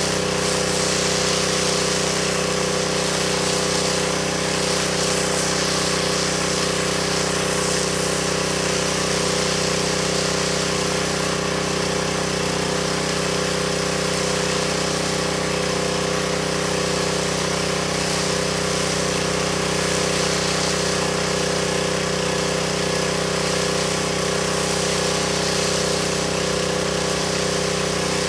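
Pressure washer running steadily, its engine note unchanging under a hiss of water spray, while laying soap onto a carpet at gentle low pressure.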